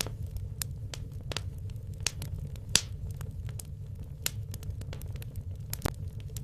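Wood logs burning in a fireplace: irregular crackles and sharp pops over a low steady rumble of the fire, with the loudest pops about three seconds in and near the end.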